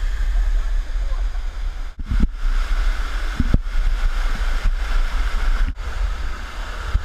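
Steady rush of water tumbling down a waterfall cascade, with wind rumbling on the action camera's microphone.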